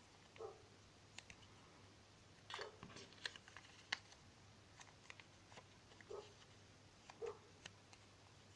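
A small slip of paper being folded and creased by hand: faint scattered crinkles and sharp little clicks, loudest about three to four seconds in, over a faint steady hum.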